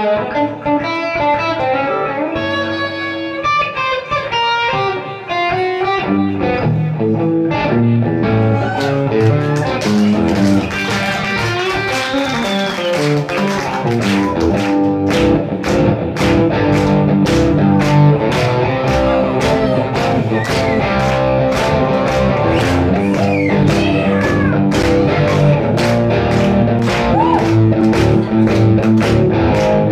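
Electric guitar playing a jazzy, bluesy improvised line. About eight seconds in, steady rhythmic handclapping at about two claps a second joins it and carries on under the guitar.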